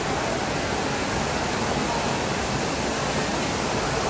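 Steady hubbub of a busy indoor food hall, many distant voices blended into an even wash of noise with no single sound standing out.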